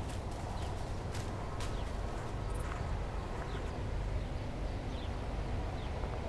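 Outdoor park ambience: a steady low rumble with small birds chirping every second or so, short falling chirps, and a few sharp clicks in the first two seconds.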